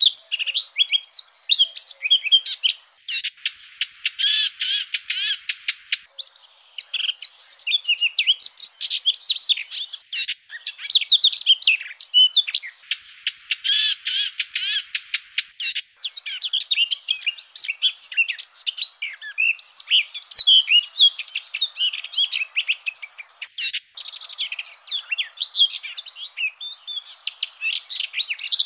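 Eurasian blackcap singing: fast, continuous, varied warbling, with two stretches of denser rapid trilling, about three seconds in and again past twelve seconds.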